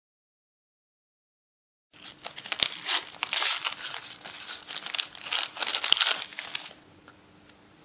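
A disposable syringe's plastic packaging being torn open and crinkled by hand: a loud, dense run of crackles and rips for about five seconds, starting after two seconds of silence. Afterwards only faint room tone with a low steady hum remains.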